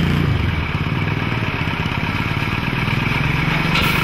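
Tata minibus engine idling with a steady, even low rumble. A short hiss comes near the end.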